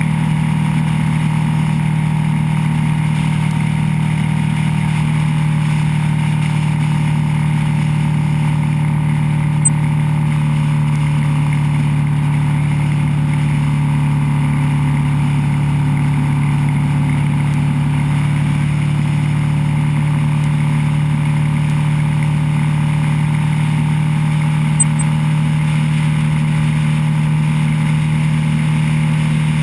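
Motorcycle engine running at a steady cruise: a constant, unchanging drone with an even hiss of wind and road noise over it.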